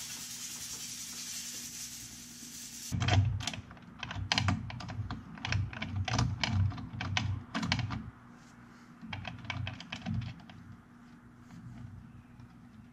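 Compressed air blown from an air-compressor nozzle over a chainsaw chain: a steady hiss for about three seconds that cuts off suddenly. It is followed by a run of quick clicks and knocks, thick for the next five seconds or so and then sparser and fainter.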